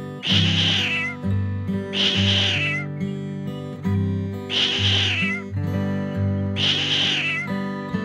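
Domestic cat meowing four times, each call about a second long and roughly two seconds apart, over acoustic guitar music.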